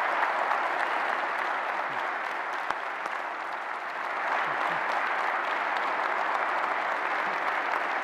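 Large audience applauding steadily after a speaker's closing words: a dense, even clapping that holds without letting up.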